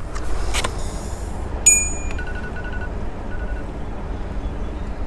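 A single bright metallic ping about a second and a half in, ringing briefly, followed by a few faint quick ticks, over a steady low rumble.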